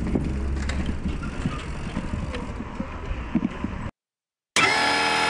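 Street sound with a vehicle engine running low and steady and a few scattered clicks, which cuts off about four seconds in; after a short silence, music of steady held tones begins.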